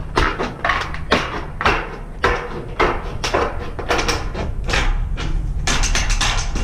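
Hand-held metal snips cutting a round hole through ribbed metal roofing panel, a sharp crunching snip about three times a second, coming faster near the end as the cut-out disc comes free. A steady low rumble runs underneath.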